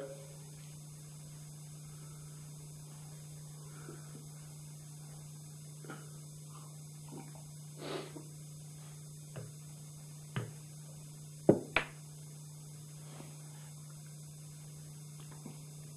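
Steady electrical mains hum, with a few scattered soft clicks and knocks. The two sharpest knocks come close together about two-thirds of the way through.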